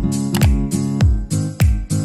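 Intro music with a steady beat: deep kick drums that drop in pitch, sharp clicks and sustained tones.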